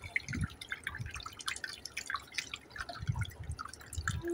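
Water from a miniature tabletop rock waterfall fountain dripping and splashing into its pool, an irregular patter of drops.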